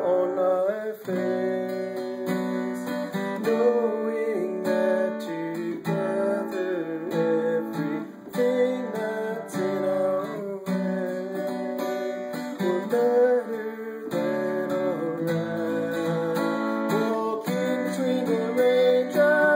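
Music: an acoustic guitar strummed steadily as song accompaniment, with a voice singing over it.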